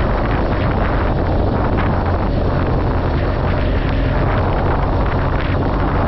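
Motorcycle engine running at a steady speed, its low drone under heavy wind rush on the microphone.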